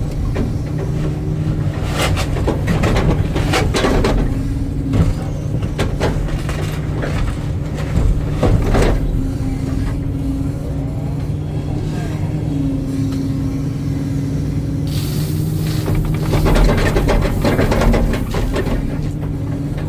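Hitachi excavator's diesel engine running steadily with the hydraulic whine shifting in pitch as the machine works. Three spells of rattling and scraping come from the bucket handling backfill.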